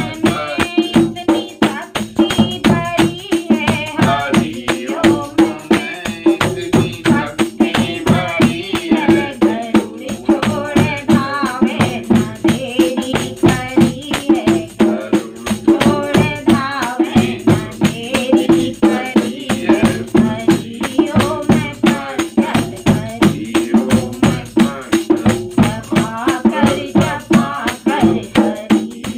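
A woman and a man singing a Shiva bhajan together, with a hand-held jingle clapper shaken and struck to a steady beat.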